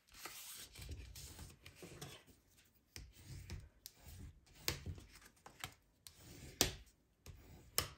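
Thick white card stock being folded by hand and creased with a bone folder: papery rubbing and scraping as the folder is drawn along the fold, with several sharp clicks as the card and tool are handled.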